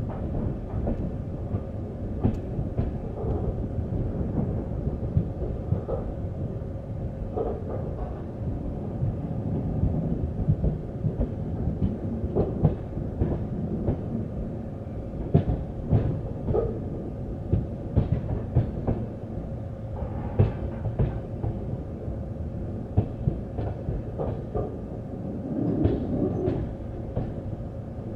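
Passenger train rolling out of a junction: a steady low rumble of wheels on track, with irregular sharp clacks as the wheels cross rail joints and points.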